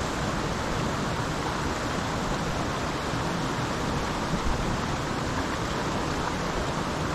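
Steady rush of flowing creek water, an even hiss with no change in level.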